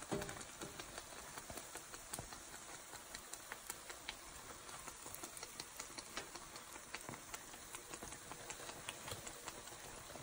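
Patongko dough sticks deep-frying in hot oil: a steady sizzle with many small crackling pops, and one sharp knock just at the start.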